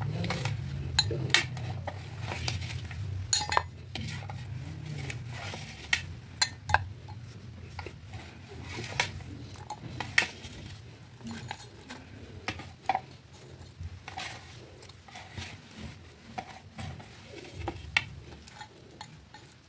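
A metal spoon clinking against a steel pot and a ceramic plate as pieces of fish, tomato and onion are moved into the pot, in irregular sharp clinks over a low steady hum.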